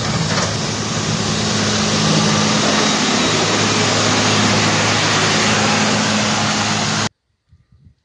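Wheel loader's diesel engine running steadily as its bucket pushes snow along the road: a low steady engine hum under a loud hiss. It cuts off abruptly about seven seconds in.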